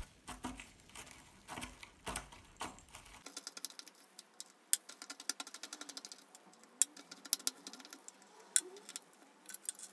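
Metal spatula tapping and scraping tin(IV) iodide powder through a plastic funnel into a glass ampoule: a run of irregular light clicks and ticks, several a second.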